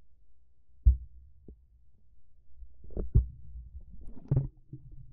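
A few dull, low thumps and knocks at irregular spacing, the loudest about a second in and a close pair around three seconds, from a marble-run ball bumping against rocks close to the microphone.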